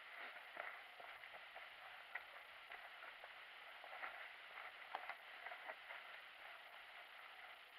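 Faint footsteps crunching over gravel, rubble and dry grass: irregular small crackles and clicks over a low hiss.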